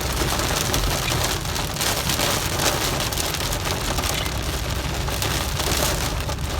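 Heavy storm rain pelting a vehicle's roof and windows, heard from inside the cabin as a dense, steady hiss, with a steady low rumble underneath.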